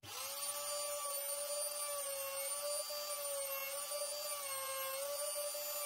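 Compact trim router spinning up and running with a steady high whine, its pitch wavering slightly as the bit makes a shallow pass into a laminated wood grip blank held in a jig.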